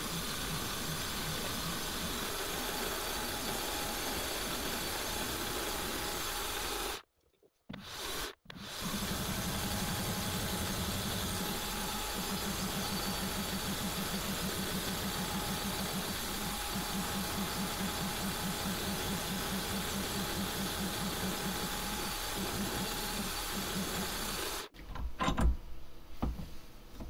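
SIEG X3 CNC mill spindle running at 2700 RPM while an end mill cuts aluminium, first a finishing pocket pass and then boring a hole: a steady noisy whir with a fast rattle, which the owner puts down to the quill splines. The sound breaks off briefly about a quarter of the way in. Near the end it stops and a few sharp knocks follow.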